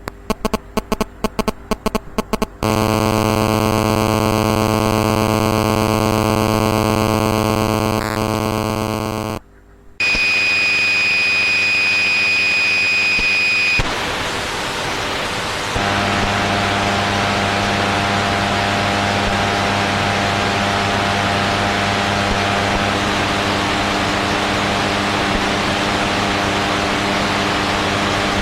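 Cell phone interference: electronic buzzing and static that changes in stages. It opens with rapid stuttering pulses, settles into a steady buzz, cuts out briefly, comes back as a high whine over hiss, and ends as hiss with a low buzz under it.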